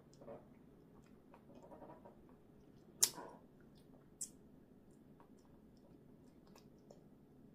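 A small child sucking and chewing a juicy orange slice: faint wet mouth sounds, with one sharp click about three seconds in and a smaller click about a second later.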